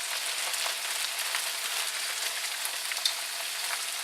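Chicken, onions, garlic and peas and carrots frying in a pan: a steady sizzling hiss with scattered small crackles and one louder pop about three seconds in.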